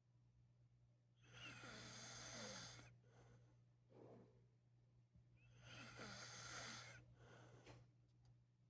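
A sleeping man snoring, faintly: two long snores about four seconds apart, each followed by a shorter, softer breath.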